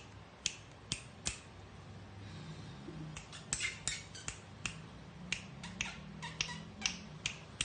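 Kitten squirming on its back in a corrugated-cardboard scratcher, its claws and body catching on the cardboard: a run of sharp, irregular clicks and scratches, thickest about halfway through.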